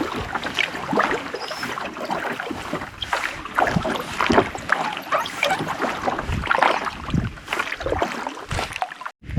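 Canoe being paddled: a paddle dips and pulls through the water, with irregular splashing and dripping around the hull.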